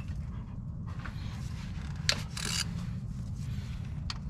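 Ratchet with a 10 mm socket turning out the bolts of a timing belt cover: a few sharp clicks and a short rasping ratchet run about halfway, over a steady low rumble.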